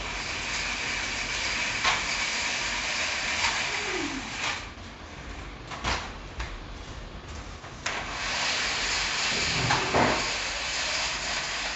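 Manual roller blinds being lowered by their pull chains: a continuous hissing rattle with clicks, in two stretches with a pause and a few sharp knocks between them.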